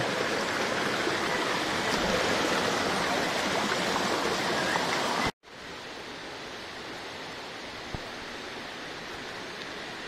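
Fast-flowing jungle stream rushing over rocks, a steady loud rush of water. About five seconds in it cuts off abruptly, and a fainter steady rush continues.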